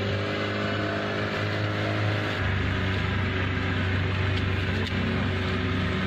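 Motorboat engine running steadily at a constant pitch, over a steady rushing hiss.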